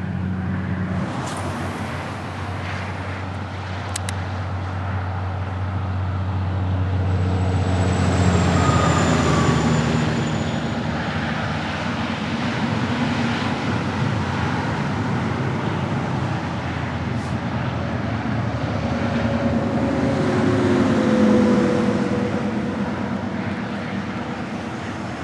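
Interstate highway traffic: a steady road roar of tyres and engines, swelling as louder vehicles pass about eight seconds in and again about twenty-one seconds in.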